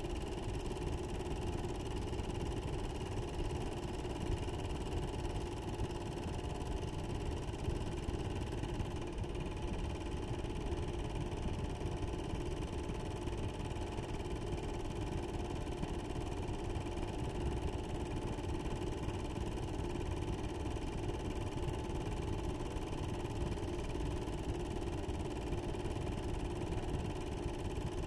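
Steady mechanical hum with a low rumble and a few held tones, unchanging throughout.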